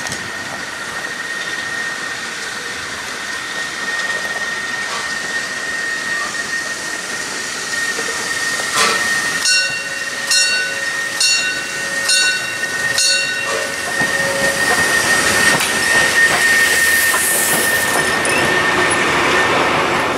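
Steam locomotive Energie 507 running in with its train and passing close by, with a steady high-pitched tone throughout and a hiss of steam rising as it passes near the end. In the middle come five short ringing tones about three-quarters of a second apart.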